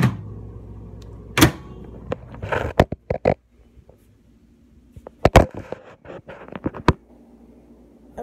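Microwave oven running with a steady low hum that stops about three seconds in, among a series of sharp knocks and clatters from handling: a few early on, then a cluster between about five and seven seconds.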